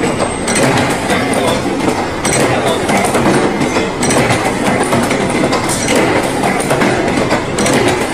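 Chain-making machine running, with steel chain links clattering continuously as the chain is fed along the machine bed.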